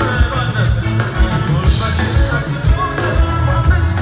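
Live band music with a male lead vocal: a drum kit keeping a steady beat under bass, electric guitar and keyboard, with the singer's voice riding on top.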